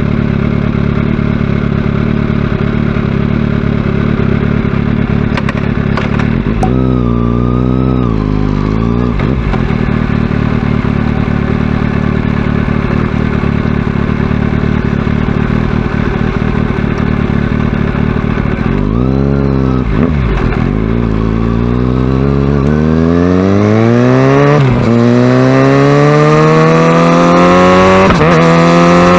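Kawasaki Ninja ZX-6R inline-four engine running steadily at low revs, blipped up and back down twice. It then pulls away, revs climbing with brief dips at each upshift.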